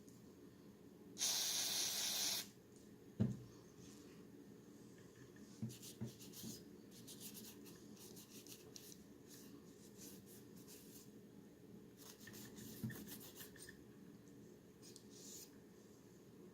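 A hiss of spray lasting about a second, a sharp click, then on-and-off scrubbing and brushing while the parts of a field-stripped 1911 pistol are cleaned.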